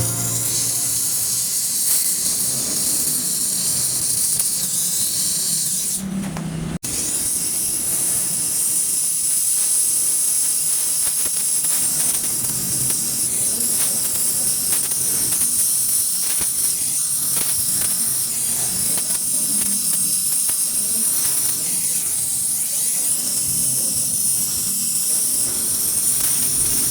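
Welding torch flame hissing steadily while cast aluminum is torch-welded, with a brief break about six seconds in.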